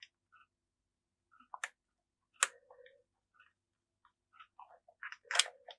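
Scattered small clicks and taps of a screwdriver and a tiny screw being worked into a new on/off switch mount, with sharper clicks about two and a half and five and a half seconds in.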